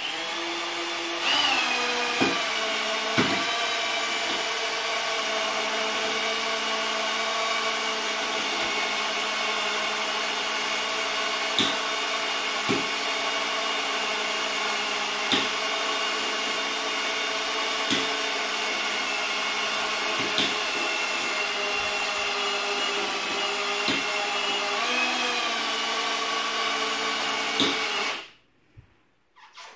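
Cordless drill driving the winch of a pedestal tire crane, running steadily as it hoists a truck tire, with a sharp click every few seconds. It picks up speed about a second in and stops shortly before the end.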